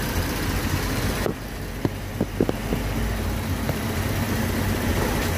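Ford Taurus idling with a steady low hum. About two seconds in comes a quick cluster of sharp knocks, then two single ones, from the front stabilizer bar area, where a worn stabilizer bar bushing has play and clunks.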